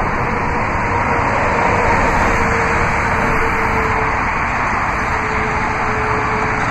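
Steady road-traffic noise from passing highway vehicles, with a faint hum that slowly falls in pitch.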